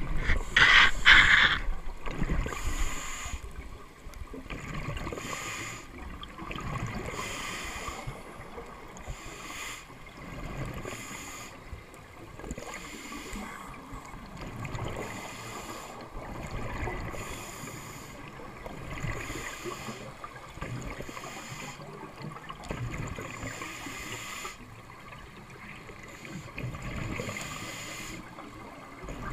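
Scuba diver breathing through a regulator underwater: a hiss of inhaled air and a rush of exhaled bubbles about every four seconds. About a second in, a short, loud burst of air from the BCD's inflator hose valve.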